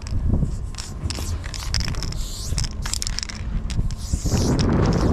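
Aerosol spray-paint can hissing in many short strokes as paint is sprayed onto a train carriage's steel side, over a steady low rumble. A louder rushing noise sets in near the end.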